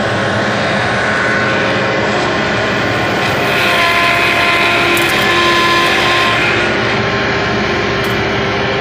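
Bobcat skid-steer loader running hard, its engine and hydraulics making a steady loud drone with a whine over it that grows a little louder about three and a half seconds in.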